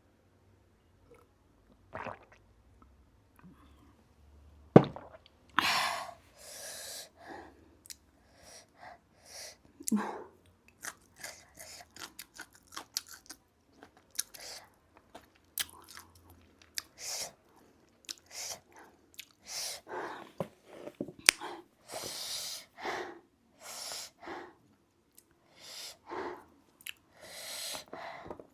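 Close-up mukbang eating sounds: a person chewing soggy ramen noodles with many small irregular mouth sounds, broken every few seconds by short airy bursts.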